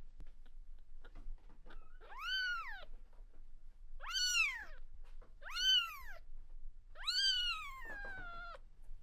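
A cat meowing four times, each call rising and then falling in pitch; the last call is the longest and slides down at the end.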